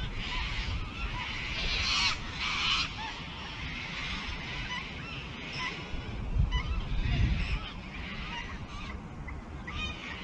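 Many short bird calls scattered throughout, over wind hissing and rumbling on the microphone, with stronger gusts about two seconds in and again around six to seven seconds.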